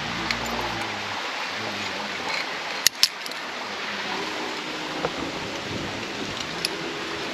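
Steady outdoor hiss at the crag with two sharp clicks close together about three seconds in, and a few fainter ticks later.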